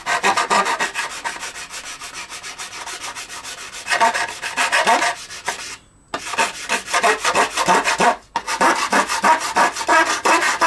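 Sandpaper rubbed quickly back and forth over the edge of a plastic cowl moulding, trimming it back for a better fit. The strokes are rapid and rasping, with a slight squeak, and stop briefly twice, about six and eight seconds in.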